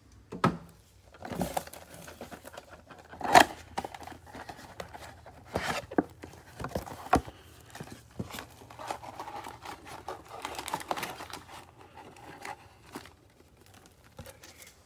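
Cellophane shrink-wrap on a trading-card box crinkling and tearing, with sharp crackles and knocks as foil card packs are handled and set down; the loudest crack comes about three seconds in, and a longer patch of crinkling follows near the middle.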